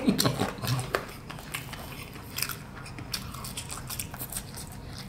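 Close-up chewing of crispy fried fast food, a run of short crunches.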